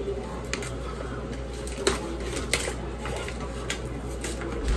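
A paper sack of granulated sugar being opened and handled, its paper crackling in a few sharp, scattered crinkles, over a low steady hum.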